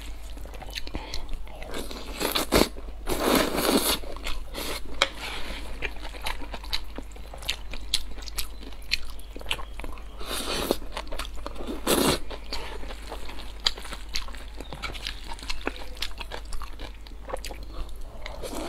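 Close-miked eating of stir-fried glass noodles with egg and peppers: steady wet chewing with many small mouth clicks and smacks, and a few louder stretches about three seconds in and again around ten to twelve seconds, where mouthfuls of noodles are slurped in.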